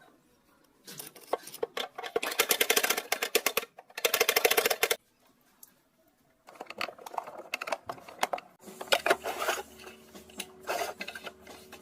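Rapid, dense clicking and scraping of small mechanical hand work, in two long bursts with a short pause between, as parts of a cassette player are worked on. A faint steady hum comes in near the end.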